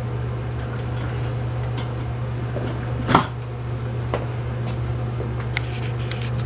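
Steady low hum of workshop background noise, with one short noise about three seconds in and a few faint clicks near the end.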